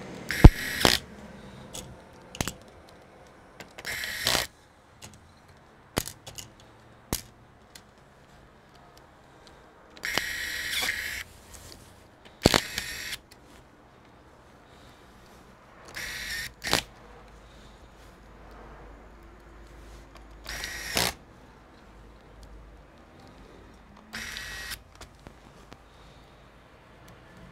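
Electric screwdriver running in about seven short whirring bursts, each under a second, as it backs screws out of a laptop's bottom cover. A few sharp clicks fall between the bursts.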